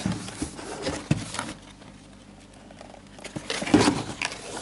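Cardboard shoebox being handled and moved on a wooden tabletop: rustling, scraping and light knocks, in a burst over the first second or so and again from about three seconds in.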